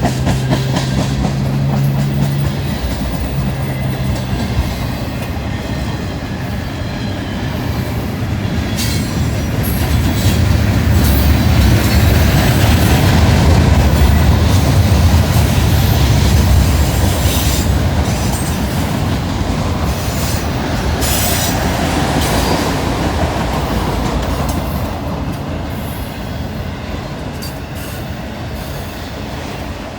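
Freight train rolling past, its steel wheels clicking over the rail and squealing, with a deep rumble that is loudest in the middle and eases off near the end.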